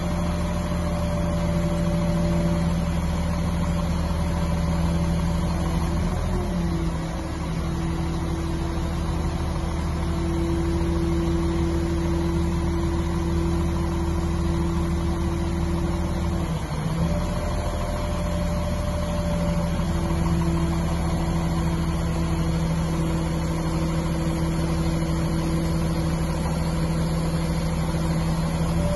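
Mobile crane's diesel engine running steadily while holding a heavy test load on the hook, its note dipping briefly about six seconds in and again about seventeen seconds in.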